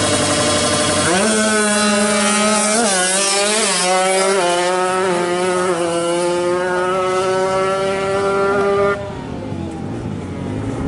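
Two-stroke Kawasaki Ninja 155 drag bike engine revving hard. The pitch climbs and drops a few times as the gears change, then holds high at full throttle and cuts off abruptly about nine seconds in.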